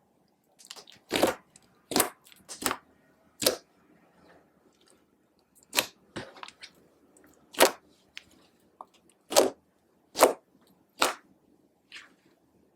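Clear slime being worked and folded by hand with makeup mixed in, giving sharp sticky pops and clicks about once a second with uneven gaps.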